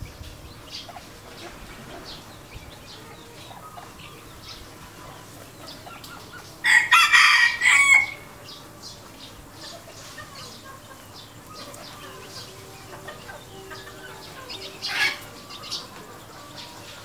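Red junglefowl rooster crowing once, a short crow of about a second and a half, some seven seconds in, with soft clucking and a brief call from the flock around it.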